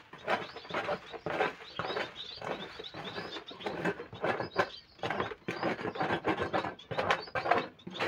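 Bird-cage floor tray being scraped clean of caked droppings and seed husks, a quick irregular run of rasping scrapes and knocks.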